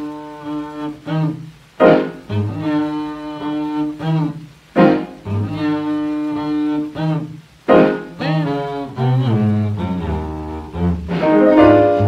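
Jazz trio music from a 78 rpm record: a bowed double bass plays long held notes while the piano strikes loud chords about every three seconds, with quicker notes near the end.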